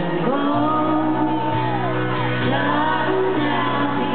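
Live country music: women singing into microphones over a sustained band backing, with an acoustic guitar, and shouts and whoops from the audience.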